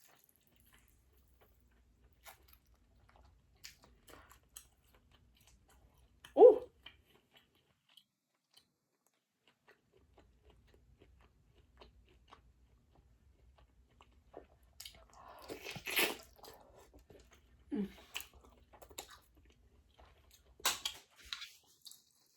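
Close-miked chewing and mouth sounds of someone eating seafood, in scattered short smacks and crunches with quiet gaps between them. There is a sharp louder sound about six seconds in, and a busier stretch around the middle.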